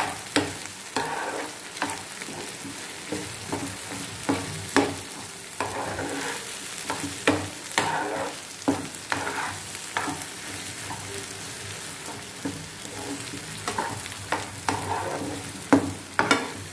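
Thick red chilli and gongura chutney frying and sizzling in oil in a pan. A spatula scrapes and knocks against the pan at irregular intervals as it is stirred, in the last frying stage where the oil is worked into the chutney.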